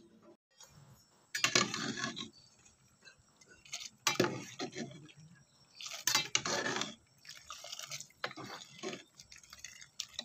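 A metal slotted spoon clattering against a cooking pot as fresh noodles are stirred and lifted in hot liquid, with splashing, in four short bursts about two seconds apart.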